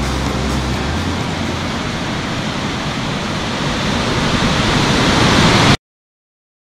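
Water rushing out of a concrete dam's spillway into the river below: a steady roar that grows louder and then cuts off suddenly near the end. A few low held tones sound under it in the first second.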